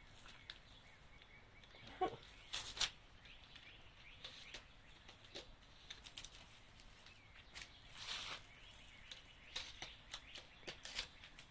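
Small fire crackling as a doll and dry leaves burn, with irregular sharp snaps and clicks.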